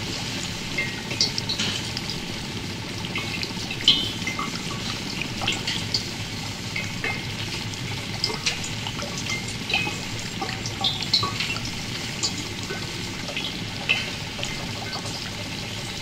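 Liquid bubbling steadily: a dense stream of irregular small bubble pops and gurgles over a low, even rumble.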